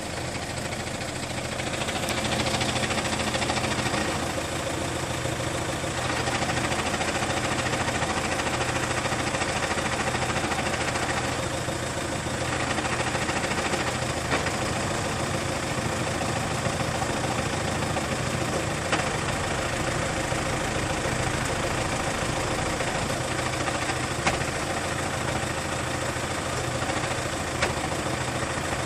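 Peugeot 407 2.0 HDi four-cylinder turbodiesel engine idling with a strange noise, a few sharp clicks standing out in the second half. The noise comes from a failed flywheel.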